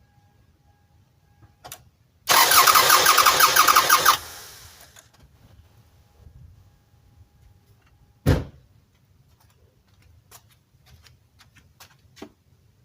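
Toyota Sienna 3.0 L V6 cranked over by the starter for about two seconds without starting, during a compression test on cylinder 6, which reads a healthy 180 psi. A single sharp thump follows several seconds later.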